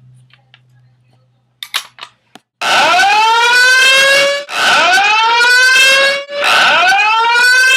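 Fire alarm evacuation tone in a slow-whoop pattern: a loud rising sweep that climbs quickly and then levels off, repeating about every two seconds. It starts a little under three seconds in, after a few soft clicks.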